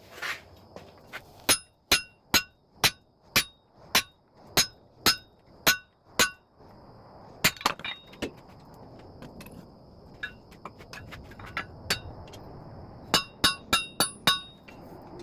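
Blacksmith's hammer striking steel at the anvil while splitting hot stock, each blow a sharp ringing clang. The blows come about two a second, pause briefly, then return in quicker clusters near the end.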